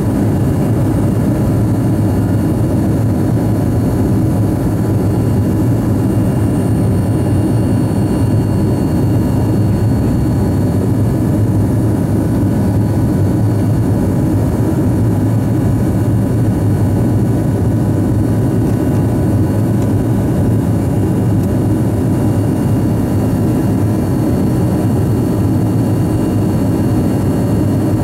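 Lycoming ALF 502 turbofan engines of a BAe 146-100 at takeoff power, heard inside the cabin beside the engine during lift-off and climb: a loud, steady roar with a thin whine on top.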